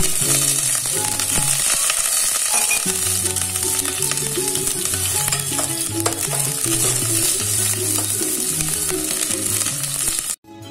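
Onion and garlic sizzling in hot oil in an enamel pot while a spoon stirs them, with background music underneath. The sizzling cuts off suddenly just before the end.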